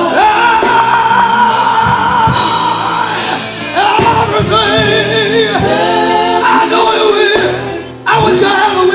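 Male gospel vocal group singing live in harmony, holding long notes, with a short break near the end.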